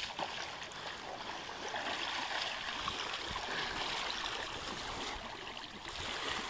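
Shallow lake water sloshing and splashing around a person who sits in it, gets up and wades, a steady watery rush with small splashes.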